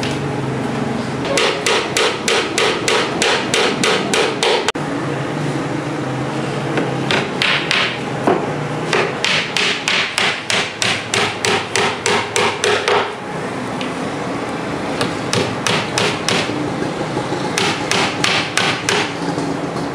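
A hand hammer tapping on a wooden cabinet panel in quick runs of about five blows a second, with short pauses between the runs.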